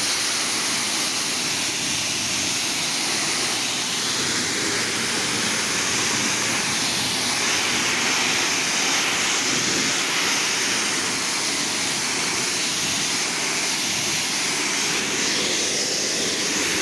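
Pressure washer wand spraying a steady high-pressure jet of water, a constant loud hiss.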